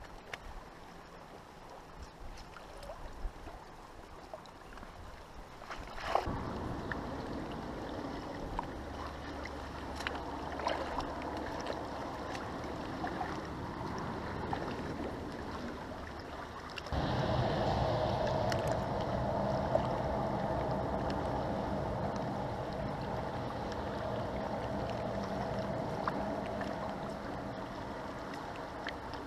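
Fast-flowing river water rushing steadily. It gets suddenly louder about six seconds in and again a little past halfway.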